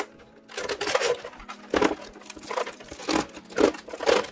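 Thin clear protective film being peeled off the outside of a painted polycarbonate RC car body shell, crinkling with irregular crackles.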